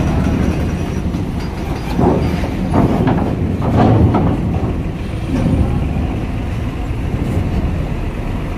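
Hino car-carrier truck's diesel engine running as it rolls off a ferry ramp, a steady low rumble with several clanks as its wheels cross the steel ramp plates, about two to four seconds in.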